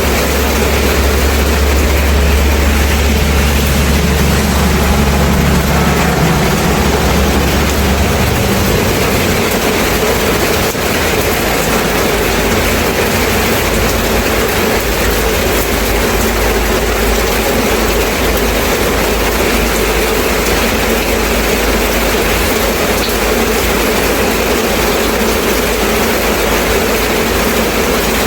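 Steady rain falling. A low rumble lies under it for about the first eight seconds, then fades away.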